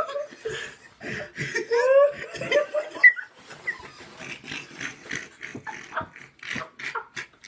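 People laughing, with wavering high-pitched rises about two seconds in, then breaking into quick, choppy bursts in the second half.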